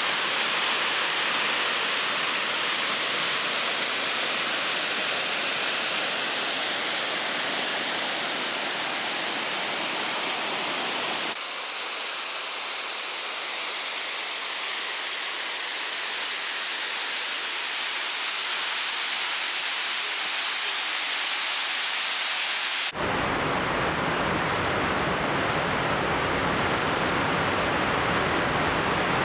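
Waterfall: a steady, loud rush of falling water. It changes abruptly twice, brighter in the middle stretch and deeper in the last.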